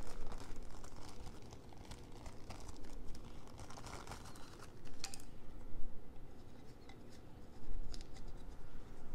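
Crinkling and rustling of a clear plastic bag handled by gloved hands, with small irregular clicks and scrapes of plastic parts.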